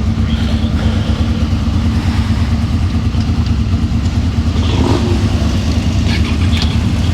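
Motorcycle engine idling steadily, with a few light clicks about five and six seconds in.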